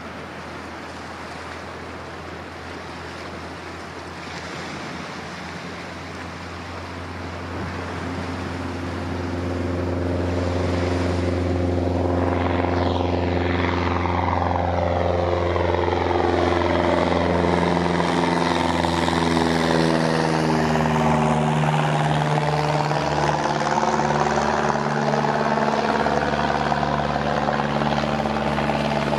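Cessna 172P's four-cylinder Lycoming engine and propeller at full takeoff power, growing louder over several seconds as the plane rolls and climbs toward the listener. The drone then drops in pitch as it passes overhead and heads away.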